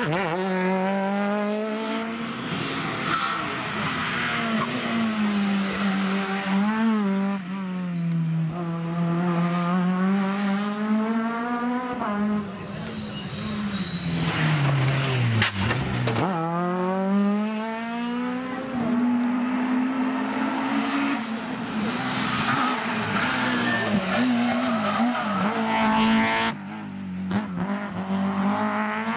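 Rally car engines revving hard on a tarmac stage, climbing through the gears and dropping on the lift-off and braking, one car after another, with a deep drop in revs about halfway through.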